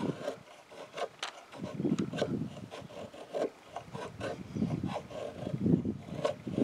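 Dragonfly Arms Kephart knife's 1084 carbon-steel blade shaving feather-stick curls down a walnut stick: a series of short scraping cuts, about one or two a second.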